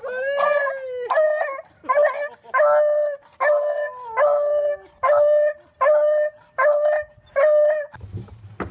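A dog howling and crying in a string of short, wavering calls, about one a second. The calls stop abruptly near the end.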